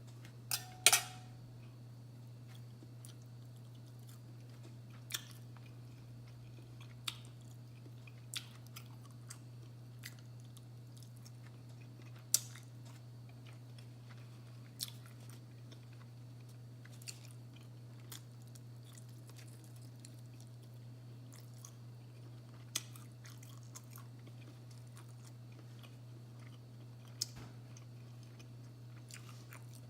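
A person eating a meal: chewing, with cutlery clinking sharply on a plate about a dozen times at irregular intervals, loudest about a second in, over a steady low hum.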